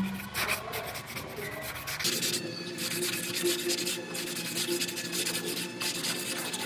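Sanding block rubbed by hand over cured body filler on a car's steel quarter panel, in quick back-and-forth scraping strokes.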